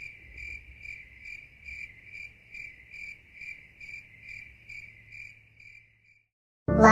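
Cricket chirping sound effect: a steady high chirp repeating about two to three times a second, fading out after about six seconds. Music with singing cuts in just at the end.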